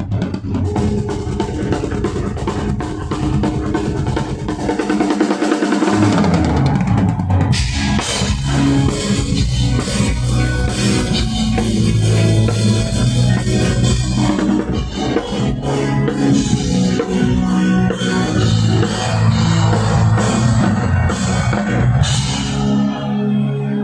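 Drum kit played live, kick, snare and cymbals, over a bass line of held low notes: a band running a rock groove on stage at sound check. The top end brightens about seven seconds in.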